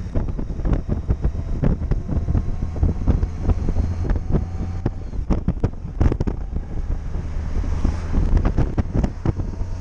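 Wind buffeting a helmet-mounted microphone on a moving motorcycle, in dense irregular gusts, over the steady low drone of the touring motorcycle's engine and tyres at road speed.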